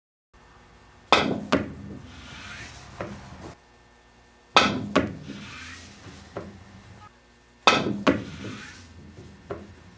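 Three pool shots about three seconds apart. Each is a sharp click of a very soft Ultraskin leather cue tip on a solid maple shaft striking the cue ball, followed by a second knock and the ball rolling on the cloth.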